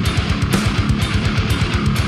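Background music: hard rock or metal with distorted guitars and a fast, driving beat.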